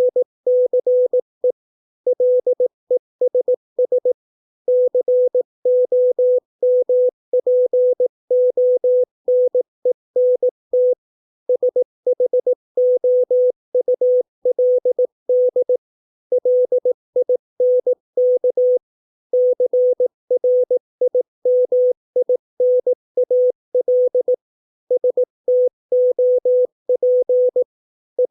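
Morse code at 18 words per minute: a single steady mid-pitched beep keyed on and off in short and long elements (dits and dahs), spelling out English words, with a brief pause between each word.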